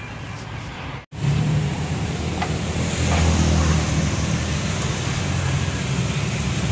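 Steady street-traffic rumble of passing motor vehicles. It cuts out briefly about a second in and returns louder.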